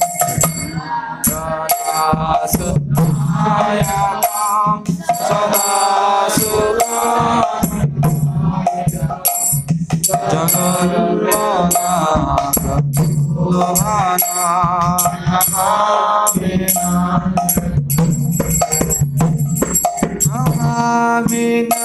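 Devotional kirtan music: a mridanga (Bengali clay khol drum) played with both hands in a quick, steady rhythm under a wavering melody line, with high metallic jingling percussion ringing throughout.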